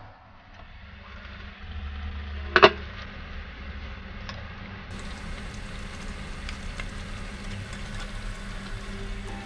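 Water boiling in a stainless steel pot with choy sum in it, bubbling steadily as a spatula stirs the greens. A single sharp metal clink sounds about two and a half seconds in, the spatula striking the pot.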